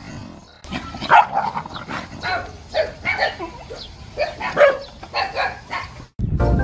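A dog barking over and over, about two barks a second, in alarm at a stuffed toy tiger pushed at it.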